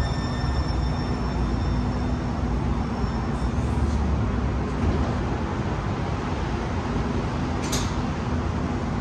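Link light rail train rolling slowly to a stop at the platform: a steady low rumble, with a high electric whine that fades out about a third of the way through. A brief hiss comes near the end.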